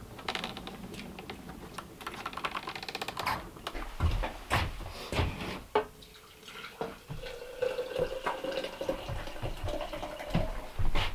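Water being poured into a container, a faint tone that slowly rises in pitch as the vessel fills, over the second half. Before it come clicks, knocks and a quick rattle.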